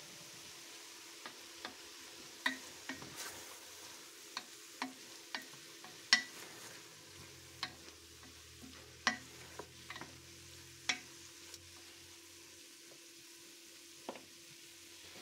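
Wooden spoon stirring diced chicken and onions in a stainless steel pot, knocking against the pot about sixteen times at an uneven pace, loudest about six seconds in. The chicken sizzles faintly as it sautés in olive oil.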